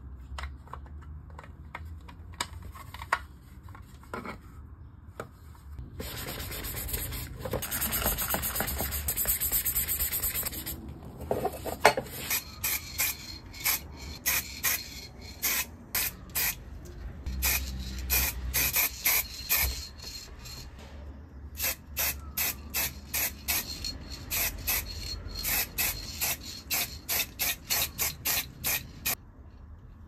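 Aerosol spray paint can spraying: one long even hiss, then many short hissing bursts at about two a second. A few light plastic clicks come before the spraying starts.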